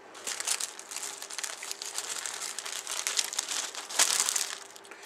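Thin clear plastic kit bag crinkling and rustling as it is handled, with a louder burst of crinkling about four seconds in.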